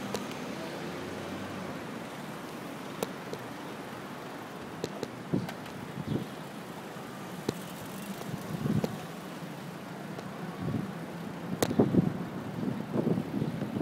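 Street noise heard from a bicycle being ridden: a steady rush of air and road with scattered sharp clicks and knocks, busier near the end.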